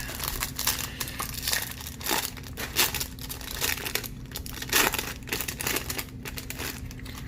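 Trading card pack wrapper crinkling and tearing as it is opened by hand, a dense run of irregular crackles.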